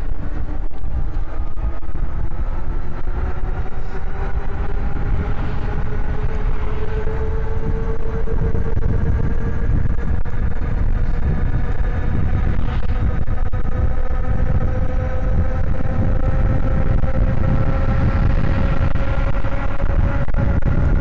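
Eahora Juliet e-bike's electric hub motor whining under power, its pitch rising slowly and steadily as the bike gathers speed, over a constant rumble of wind and road noise.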